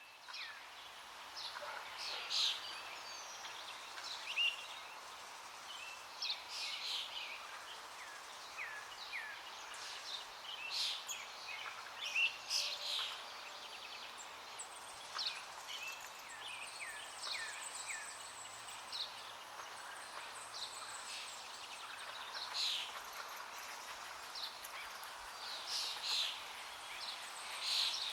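Many small birds chirping and calling, with short high notes and quick downward-sliding whistles, over the steady rush of a river.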